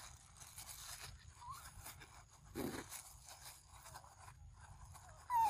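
Close, crackling rustle of grass and leaves right at the microphone as a monkey moves up to the camera, stopping suddenly near the end. It is followed by one short, falling squeak.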